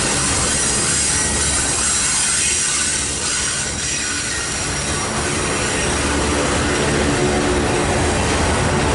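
Union Pacific double-stack intermodal train rolling past: steady rumble of steel wheels on the rail, with thin high flange squeal from the wheels on the curve.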